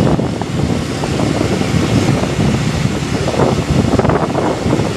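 Engine of a mobile boat hoist running steadily as it carries a yacht along the pier, with wind buffeting the microphone.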